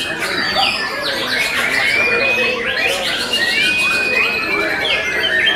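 White-rumped shamas (murai batu) in cages singing many at once: a dense mix of overlapping whistles, trills and chattering calls, with a long clear whistle about two seconds in and another held whistle just before four seconds.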